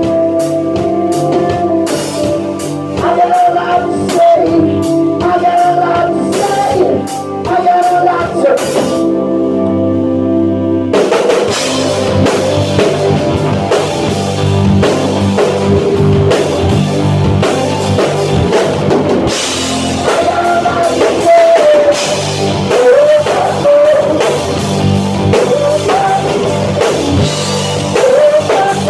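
A rock band playing live, with drum kit, guitar and singing. The drums drop out for a couple of seconds about nine seconds in, then the full band comes back in with a denser sound.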